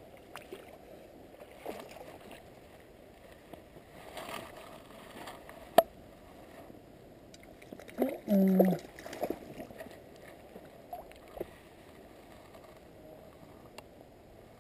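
Low steady rush of river water with small splashes and rustles while a hooked rainbow trout is played and landed. There is a sharp click near the middle and a short vocal sound about eight seconds in.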